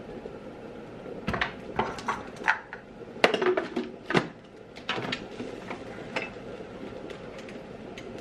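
Spatula scraping and knocking against the Thermomix TM31's stainless steel mixing bowl, then the lid being set back on: a string of irregular clicks and clatters, loudest about three to four seconds in.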